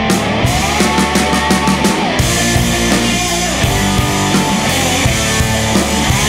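Rock music backing track playing steadily.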